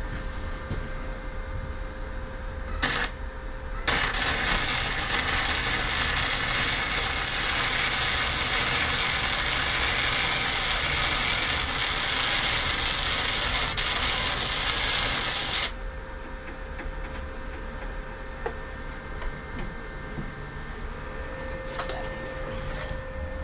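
Arc welder striking briefly about three seconds in, then holding a steady crackling, sizzling arc for about twelve seconds while a weld bead is run, cutting off sharply.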